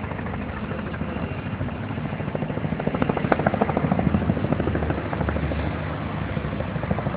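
Air ambulance helicopter flying low, its rotor giving a rapid, even beat that grows louder toward the middle and then eases a little.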